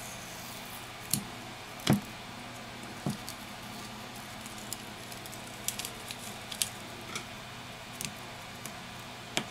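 Small clicks and taps of a smartphone's parts being pressed and fitted by hand, with a few louder knocks in the first three seconds, then light ticks of a precision screwdriver turning a tiny screw, over a steady low hiss.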